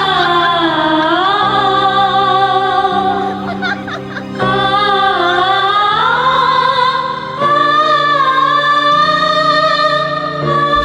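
A sad song sung by a woman's voice over sustained backing chords, in phrases of a few seconds each.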